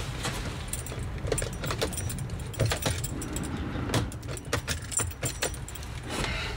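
Bunch of car keys jangling, with a series of sharp clicks, as the key goes into the Mercedes Sprinter van's ignition and is turned to switch the ignition on. A low steady rumble runs underneath.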